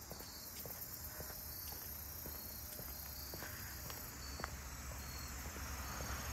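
Insects singing steadily in the trees, a high continuous chorus with short repeated pulses, with a few faint ticks over it.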